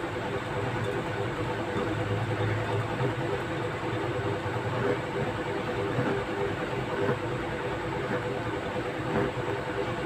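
A steady mechanical hum holds through, with a few faint soft rustles of thread and cloth being handled.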